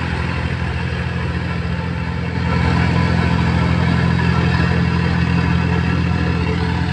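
An engine running steadily, getting louder about two and a half seconds in.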